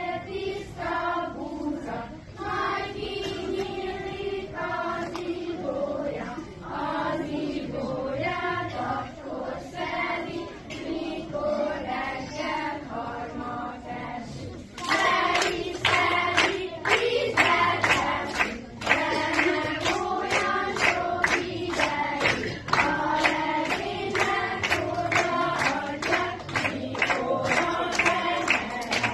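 A group of voices singing a song together. About halfway through the singing gets louder, with many sharp knocks beating through it.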